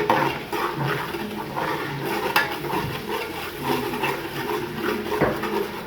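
Onion, garlic and ginger paste with curry frying in hot oil in a pot, stirred with a spoon that scrapes and knocks against the pot, one sharp knock about two seconds in.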